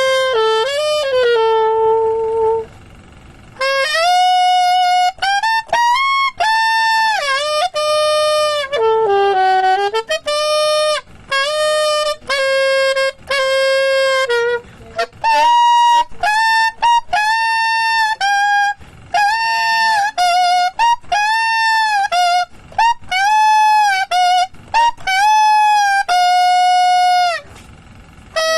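Saxophone played unaccompanied through a J&B Cheetah custom mouthpiece: short melodic phrases of held and quick notes with brief breaks, some notes wavering with vibrato or bending in pitch, and a pause of about a second near the start.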